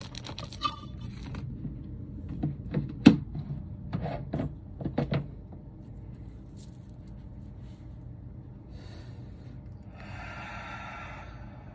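Handling noise from a phone being held and repositioned: a run of irregular knocks and rubs, the loudest about three seconds in, over a low hum, then a soft rushing noise near the end.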